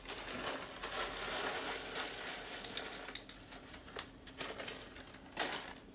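Frozen peas shaken from a bag into a skillet: the bag crinkling and the peas pattering onto the chicken mixture in small clicks, busiest for the first three seconds and then thinning out.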